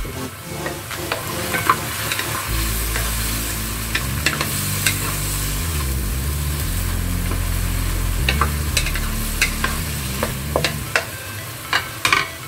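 Baby corn and carrot slices sizzling in oil and oyster sauce in a nonstick wok, stirred with a wooden spatula that scrapes and knocks against the pan in scattered clicks. A low hum runs underneath through the middle.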